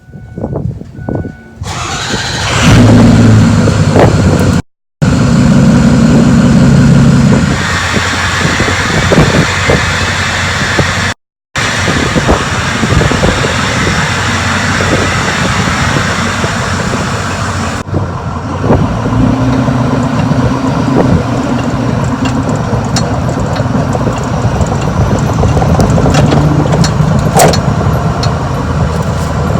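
Ford 6.0 Powerstroke turbodiesel V8 starting about two seconds in, then running as the truck is driven, its pitch rising and falling. Two brief dropouts cut the sound.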